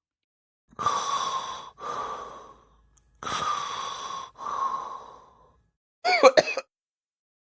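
A person's hard, breathy breaths or coughs in two pairs, each about a second long, followed about six seconds in by a short wavering vocal sound.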